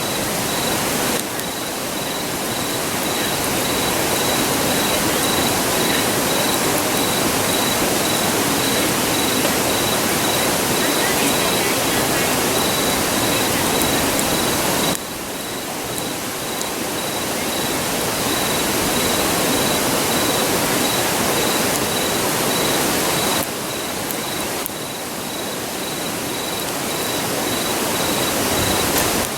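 Steady rushing of a nearby river, with an insect's high, evenly pulsing trill over it. The rushing drops abruptly about halfway through and again near the end, then slowly builds back.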